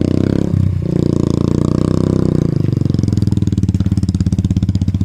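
Motorcycle engine running on a rough dirt road. Its revs drop about halfway through and settle to a slower, lumpier beat.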